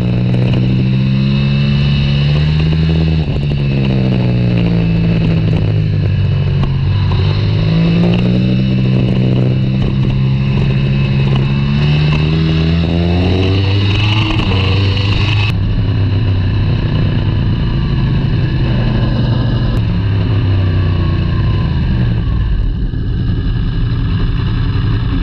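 2018 Yamaha R1's crossplane inline-four through a Spark full exhaust system, heard onboard at track speed: the engine note climbs and drops with gear changes several times, then settles to a lower, steadier run after about fifteen seconds as the bike slows into the pit lane.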